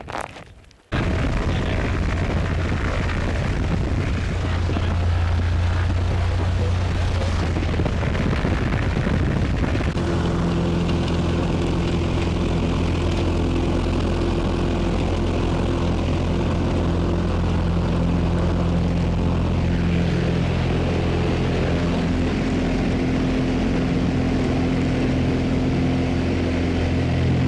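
Propeller airplane engine running steadily, a loud even drone that starts abruptly about a second in, with steady engine tones coming through from about ten seconds on.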